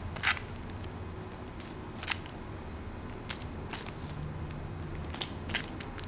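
Clear plastic packaging of small stationery sets crinkling and crackling as hands pick them up and shuffle through the stack, in a handful of short, crisp bursts scattered through, the loudest about a third of a second in.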